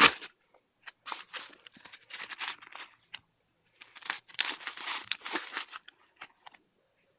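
The nylon magazine pouches and flaps of a Tactical Tailor scout vest being handled. There are three spells of scraping and crinkling fabric noise, the longest about four seconds in, then a few small clicks.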